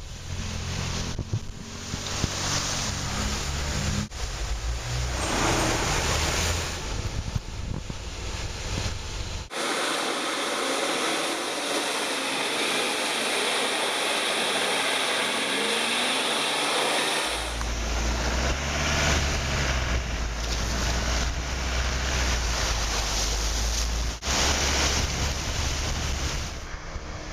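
Land Rover 4x4s driving through deep muddy puddles: engines running and water splashing and sloshing around the wheels. The sound changes abruptly a few times as the footage cuts from one run to the next.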